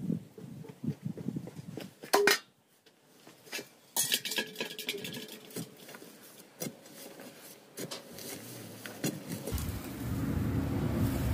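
A metal digging tool knocking and clinking against stony soil: scattered sharp strikes, a loud one about two seconds in and ringing clinks about four seconds in. A steady low rumble joins after about nine seconds.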